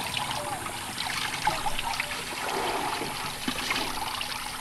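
Shallow stream water trickling and splashing steadily, with many small splashes throughout.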